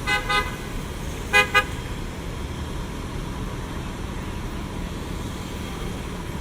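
Car horn honking four short toots in two quick pairs about a second apart, over a steady rumble of city street traffic.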